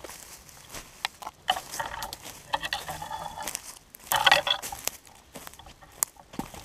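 Footsteps crunching unevenly through dry conifer needles and twigs on the forest floor, with a louder burst of crunching about four seconds in.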